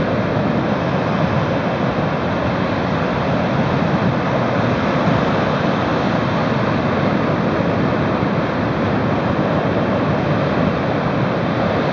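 Rough storm surf breaking over a reef and washing up a beach, with strong wind: a loud, steady rush of noise.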